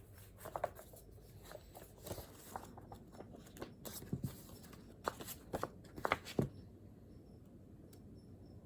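Rustling and small clicks and knocks of paper and study materials being handled on a desk, busiest in the first six seconds, then only faint room tone.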